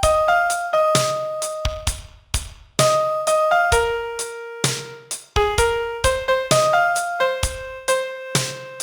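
Piano playing a slow single-note pop melody with a few low notes beneath it, each note struck and left to decay, some held for about a second.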